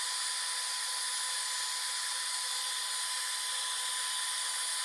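Small hair dryer running steadily, an even high hiss with a faint whine, used to heat the phone's glass so it lifts off.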